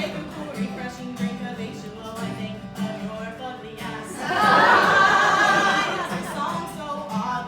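Live music: a woman singing a song over a steady instrumental accompaniment, with a softer sung passage followed by a louder phrase about halfway through.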